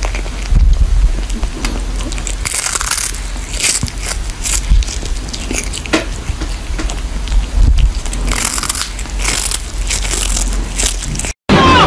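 Cat chewing a dried fish, crunching it with its teeth in bursts of crisp, crackly bites.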